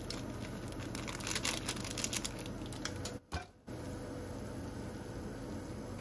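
Scattered crinkling and clicking handling sounds over a steady hum, busiest in the first three seconds, with a short dropout just after three seconds.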